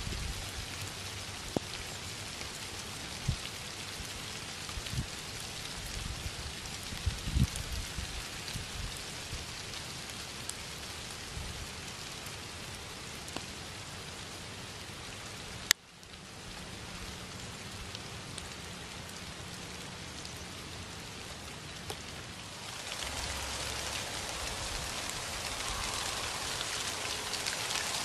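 Steady rain falling on leafy fruit trees, an even hiss. There is a sharp click about halfway through, and the rain grows louder for the last few seconds.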